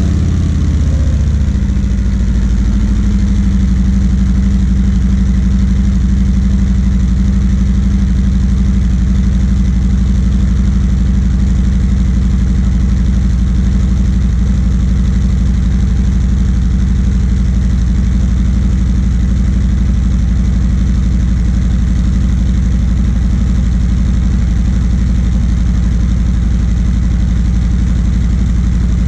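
A 2019 Harley-Davidson Road Glide Special's 114 cubic inch Milwaukee-Eight V-twin, on its stock exhaust, idling steadily just after being started to warm up. Its speed drops over the first couple of seconds, then holds an even idle.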